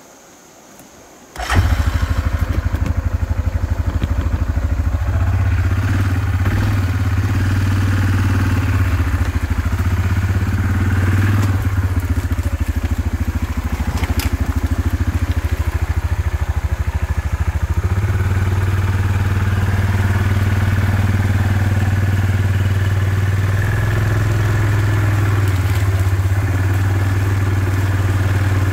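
ATV engine running steadily at low speed. It comes in abruptly about a second and a half in, and its pitch shifts slightly about two-thirds of the way through.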